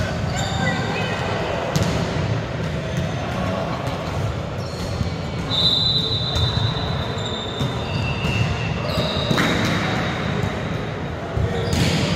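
Volleyballs being hit and bouncing on a hard gym floor, echoing around a large sports hall, over the chatter of players, with a couple of brief high squeaks.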